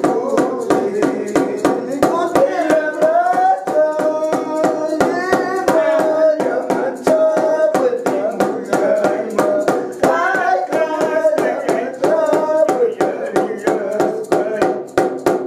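Andean herranza festival music: a drum struck in a fast, steady beat, about four strokes a second, under a high-pitched sung melody.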